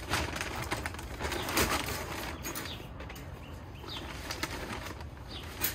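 Brown paper leaf bag rustling and crinkling as a wire cage trap is worked down inside it, with light rattles of the trap's wire mesh. A few short bird chirps sound in the background in the second half.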